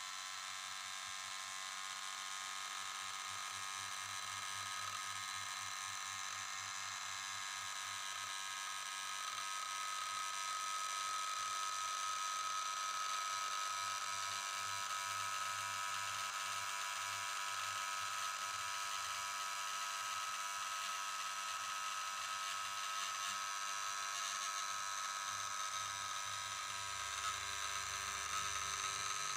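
Small electric motor running steadily with a high whine, growing slightly louder about ten seconds in.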